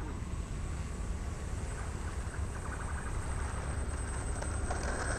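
Radio-controlled N250 model airplane's motors and propellers running as it takes off, under a heavy, uneven low rumble of wind on the microphone, with a thin steady high whine.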